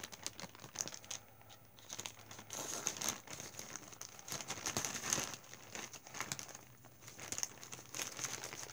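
Plastic postal mailer bag crinkling in irregular bursts as it is handled, with scissors cutting into the plastic near the end.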